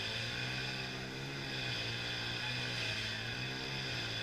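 An engine running steadily at a fairly constant speed, its pitch wavering slightly.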